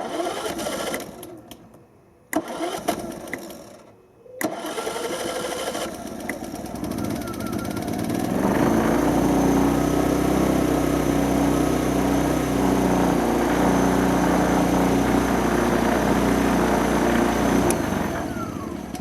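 Hyundai EFI2500SEI inverter generator's small engine: a couple of short starting attempts that die away, then it catches about four seconds in. It rises to a steady run from about eight seconds and winds down to a stop near the end.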